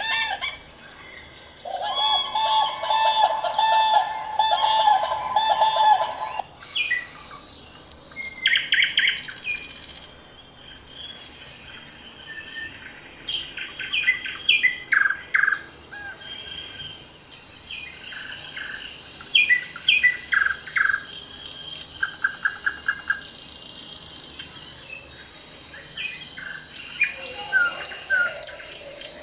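Early-morning forest birdsong from several birds. A loud phrase repeats rapidly for the first few seconds, followed by a mix of short chirps and whistled calls from different birds.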